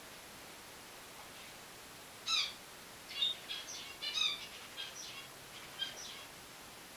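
Finches calling: a dozen or so short, high chirps in quick succession, starting a little over two seconds in and stopping about six seconds in.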